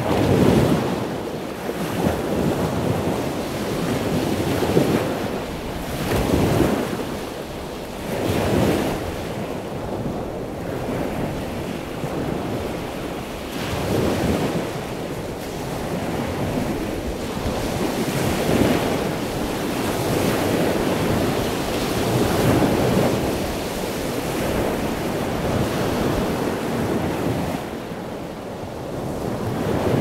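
Ocean surf breaking and washing up the shore, a continuous rushing sound that swells and falls every few seconds as the waves come in.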